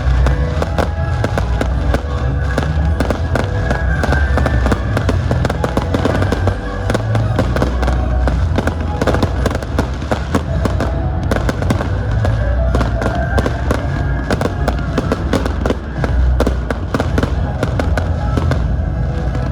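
Fireworks display in a rapid, dense barrage of cracks and booms, going off over loud background music.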